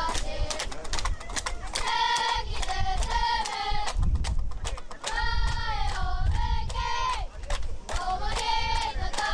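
High-pitched children's voices chanting and shouting in short repeated phrases, over a low rumble and scattered clicks.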